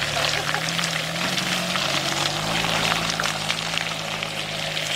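Engine of a canvas-topped UAZ off-roader pulling steadily under load as it crawls up a muddy rutted slope, its note rising slightly about halfway. A constant crackling hiss runs with it from the tyres working through the mud.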